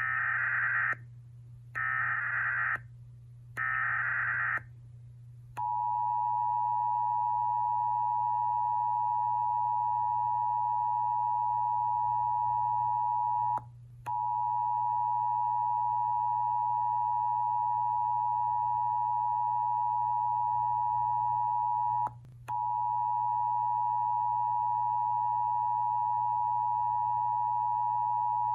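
Emergency Alert System broadcast alert: three roughly one-second data bursts of the digital header, then the steady two-tone attention signal near 1 kHz. The tone drops out briefly twice. A low steady hum runs underneath.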